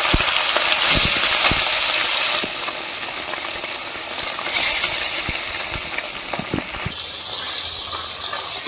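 Small mourala fish frying in hot oil in an iron kadai, a steady sizzling hiss with a few sharp pops. The sizzle is loudest for the first couple of seconds, then drops off in steps and is softest near the end.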